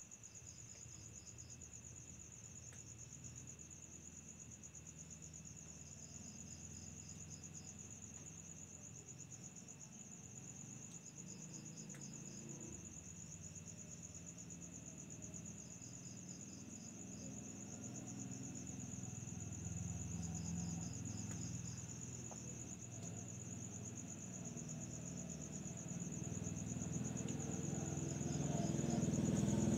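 Crickets trilling steadily at night, with a second insect giving short pulsed chirps about every five seconds. A low rumble swells in the last few seconds.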